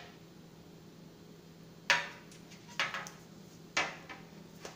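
Aluminium baking pan knocking and clattering against the stovetop as it is tilted and set down: three sharper knocks about a second apart, with a few lighter taps and a low steady hum underneath.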